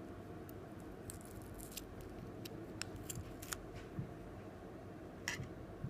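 Scattered light clicks and taps of small hand tools working on a smartphone, with a sharper click about five seconds in, over a steady low room hum.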